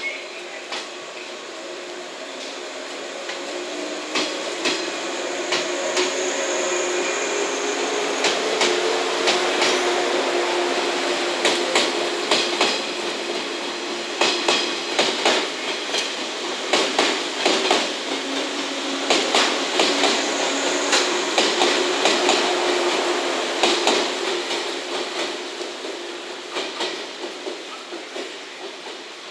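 JR West 115 series eight-car electric train running past and pulling away, its wheels clicking over the track joints in repeated clustered groups above a steady low hum. The sound builds over the first few seconds and fades near the end as the train draws off.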